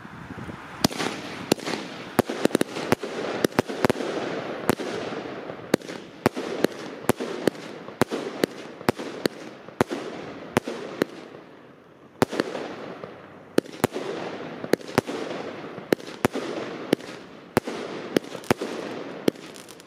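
Gaoo DM42-01 'Speed of Sound' 42-shot, 25 mm fireworks cake firing: shots launching and bursting in a rapid run of sharp bangs, about two a second, over a steady hiss, with a short lull about twelve seconds in.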